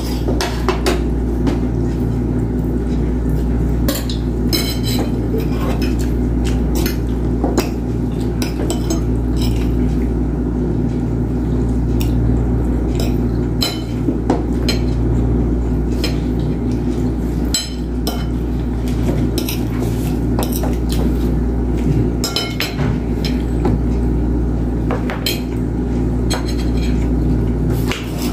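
Forks and spoons clinking and scraping against plates as people eat, with many short sharp clinks scattered throughout, over a steady low hum.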